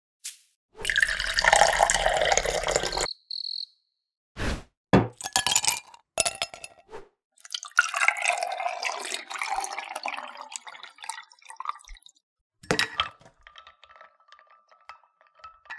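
Iced-coffee drink-making sounds into a drinking glass: liquid splashing and pouring for about two seconds, then a run of sharp clinks of ice against glass, then a longer pour over ice. A single knock comes near the end, followed by a faint steady tone.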